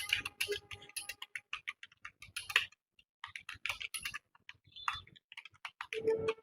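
Typing on a computer keyboard: a fast, uneven stream of keystroke clicks with a brief pause near the middle.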